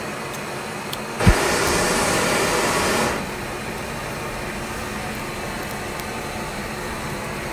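Fire catching on the cake with a sharp low thump about a second in, followed by a steady rushing noise of the flames. The noise drops in level about three seconds in.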